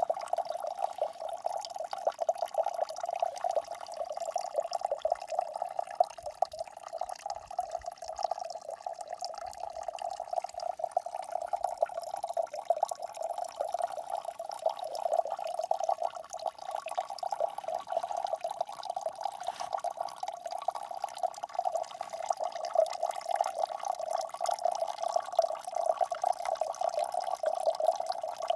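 Water trickling and dripping steadily, with a fast, continuous patter.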